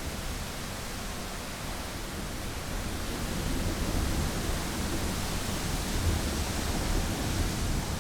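Thunderstorm ambience: a steady rush of wind noise with a low rumble underneath, growing slightly louder about three seconds in.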